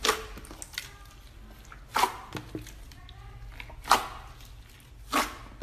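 Hands pressing and squeezing a large tub of slime: wet squelching pops, four loud ones spaced a second or two apart, with small clicks and crackles between.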